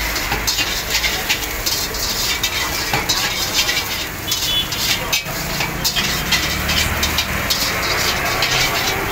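Metal spatula scraping and clanking rapidly and irregularly against a steel wok as noodles are stir-fried, over sizzling and a steady low rush from the high gas burner flame.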